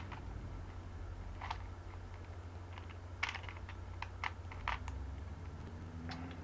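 Rubik's cube faces being twisted by hand: a scattering of short plastic clicks and clacks at uneven intervals, several close together around the middle, over a steady low hum.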